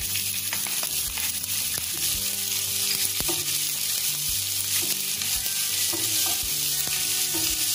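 Grated ginger and cumin seeds sizzling steadily in hot oil in a nonstick frying pan. A wooden spatula stirs them, with a few light taps and scrapes against the pan.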